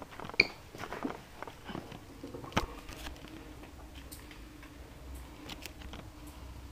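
Bosch dishwasher early in its Auto cycle: scattered faint clicks and ticks and a brief high tone about half a second in, then a faint steady hum sets in a few seconds later.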